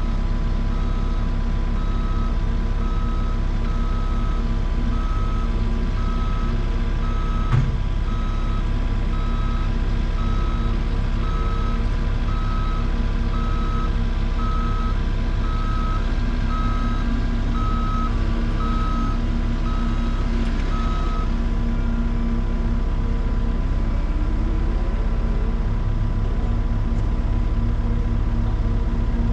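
Heavy-equipment backup alarm beeping about once a second over a steady diesel engine. The beeping stops about two-thirds of the way through, with a single sharp knock about a quarter of the way in.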